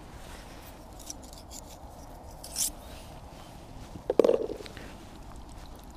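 Metal tongs serving spaghetti bolognese onto a plastic plate: a few light clicks and a short scrape, then one soft, wet plop about four seconds in, over a steady faint hiss.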